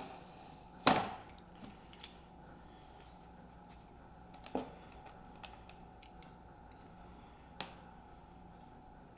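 Quiet handling of a spline rolling tool and window screen frame: a few sharp clicks and knocks, the loudest about a second in, with fainter ones midway and near the end.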